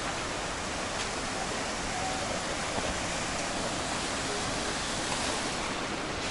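Steady rushing of a large waterfall, the Iguazu Falls' water plunging heavily and evenly.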